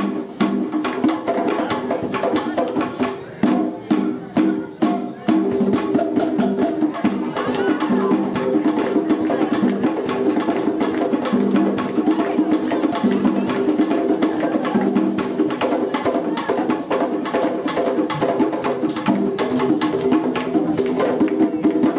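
An East African drum group playing hand drums in a fast, dense rhythm. The drumming breaks off briefly several times about three to five seconds in, then runs on steadily.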